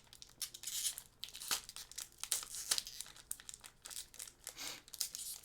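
Foil wrapper of a Pokémon card booster pack crinkling in irregular crackles as it is handled and opened.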